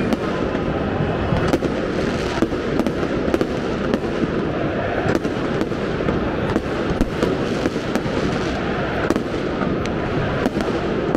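Fireworks going off in many sharp, irregular bangs and crackles over the continuous loud noise of a football crowd celebrating a goal.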